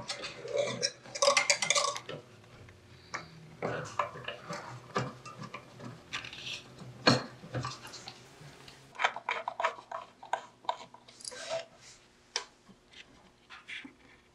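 Hands fitting metal parts and a wire-wound coil into the wooden case of an antique telephone: irregular clinks, clicks and knocks of metal against wood, busiest in the first two seconds and again past the middle.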